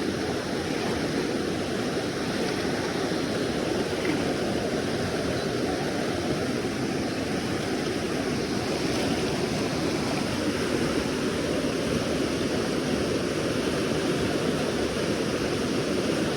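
Steady rushing of a river's flowing water, an even unbroken wash.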